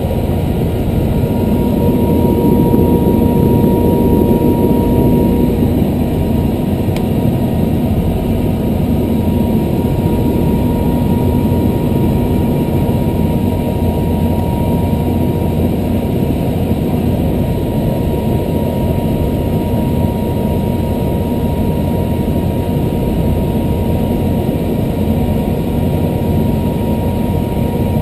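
Helicopter turbine engine and rotor running steadily on the ground, heard inside the cabin: a steady engine noise with a thin whine over it.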